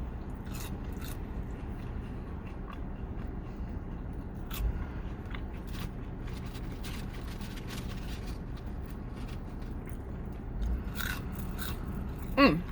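A person chewing and biting into fast food, with scattered small clicks and crinkles of food packaging over a steady low hum. A short voiced sound near the end.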